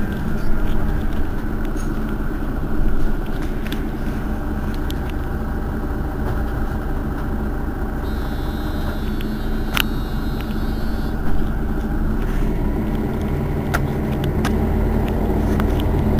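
Mercedes-Benz Citaro city bus engine idling steadily while stationary, with a few sharp clicks, the clearest about ten seconds in.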